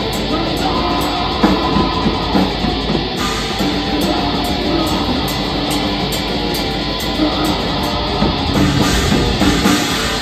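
Black metal band playing live: distorted electric guitars over a drum kit in a dense, steady wall of sound.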